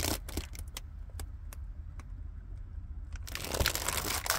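A window cover being handled and fitted over a minivan's side window: scattered clicks and handling noises, then a louder rustle from about three seconds in as the cover is pressed into place. A low steady hum runs underneath.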